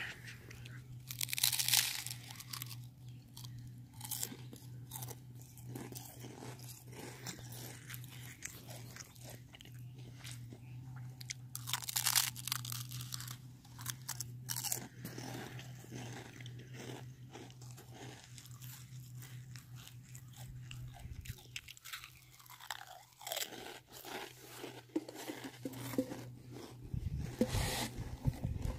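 Irregular crunching footsteps on gritty sand, louder in a few clusters, over a steady low hum that fades out about two-thirds of the way through.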